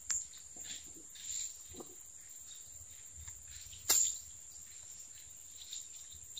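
Insects chirring steadily in a high, unbroken tone. A single sharp click about four seconds in.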